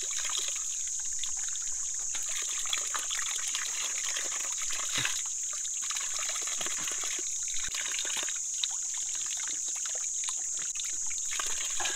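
Spring water trickling from a rock seep and splattering into cupped hands and onto the ground below. A steady high-pitched insect buzz, grasshoppers or cicadas, runs under it.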